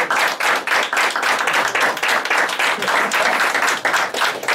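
A small group of teenage boys clapping and applauding steadily, many quick overlapping claps.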